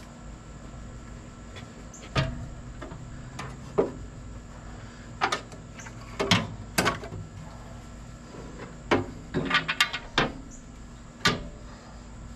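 An aluminium radiator being handled and set into place in a vehicle's radiator support: a string of separate knocks and clunks, with a quick run of light rattling knocks near the end.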